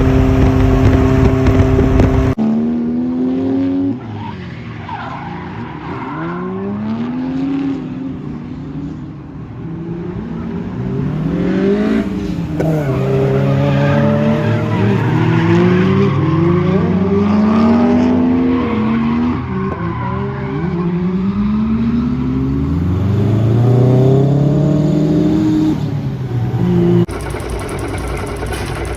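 Lexus SC300 with a turbocharged 1JZ-GTE inline-six engine drifting: the engine revs rise and fall over and over, with tire squeal. It starts with a steady held engine note for about two seconds and changes abruptly to a steadier note again near the end.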